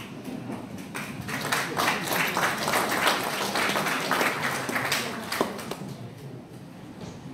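Audience applauding, swelling about a second in and dying away after about five seconds.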